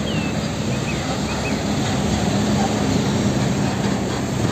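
Heavy fuel tanker truck's diesel engine running with road traffic noise: a steady low hum under an even wash of noise, with a few faint high chirps.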